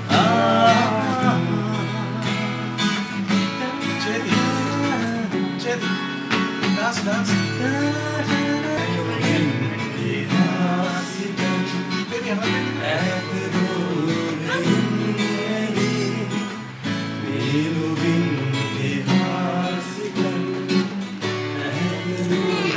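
Acoustic guitar strummed in a steady song, with a man's voice singing along.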